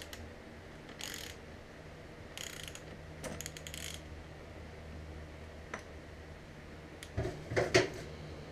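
Ratchet wrench clicking in a few short runs as it turns a gear-puller bolt on a transmission shaft. A cluster of sharp metal clanks near the end, the loudest sounds, as gear parts are handled.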